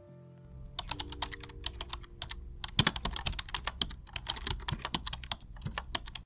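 Typing sound effect: rapid, irregular keystroke clicks, several a second, starting about a second in, over a low steady background hum.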